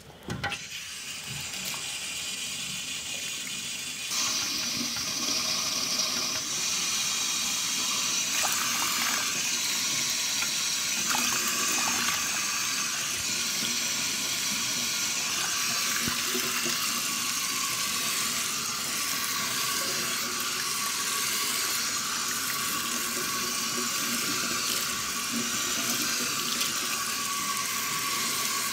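Tap water running into a shampoo basin for a hair wash, a steady rush that gets louder about four seconds in.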